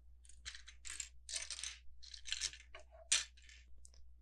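Small hard plastic LEGO pieces clattering and clicking as they are sorted and handled, in a run of short bursts with one sharper click about three seconds in.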